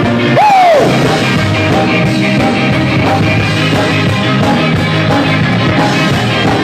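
A rock band playing live through amplifiers, loud and steady. A single swooping note rises and falls about half a second in.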